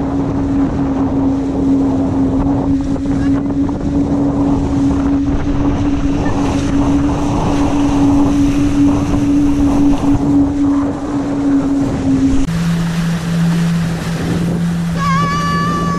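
Wind on the microphone and water rushing past the hull of a Diam24 trimaran under sail, with a steady hum throughout that drops to a lower pitch about twelve seconds in.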